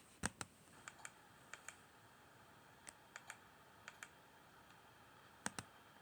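Light, sharp clicks, mostly in quick pairs, about a dozen in all, over a faint steady high-pitched hum.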